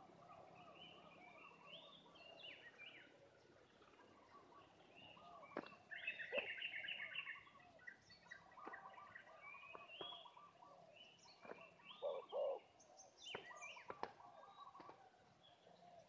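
Faint birdsong from several small birds chirping and trilling, louder for a moment about six seconds in, with a few sharp ticks and a short low two-note call about twelve seconds in.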